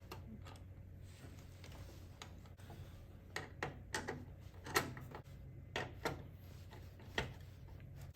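Irregular small clicks and taps, a handful of them spaced unevenly and bunched in the middle and later part, as of hard plastic and metal computer parts being handled and fitted, over a steady low hum.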